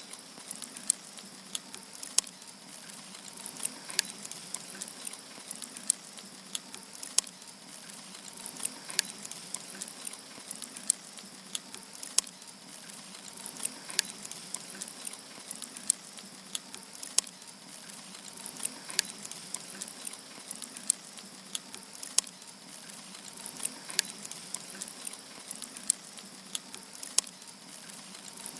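Firewood burning in a campfire, crackling with sharp, irregular pops over a steady soft hiss.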